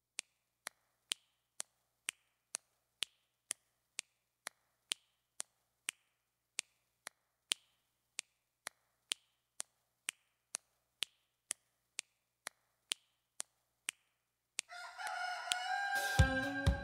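Sharp, evenly spaced ticks, about two a second, for most of the stretch. Near the end comes a brief call with several pitches that falls slightly, and then plucked-string music starts.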